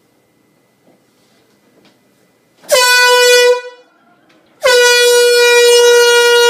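Air horn going off in two blasts: a short one of about a second, then after a one-second gap a longer, sustained one. Each blast dips slightly in pitch as it starts, then holds one steady, loud blaring note.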